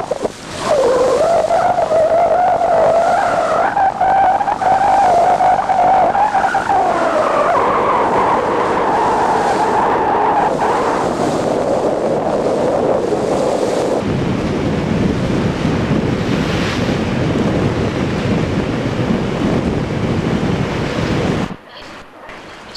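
Boat engine running with a wavering whine that rises in pitch for a moment, over rushing wind and water; about 21 seconds in the sound cuts off sharply to something much quieter.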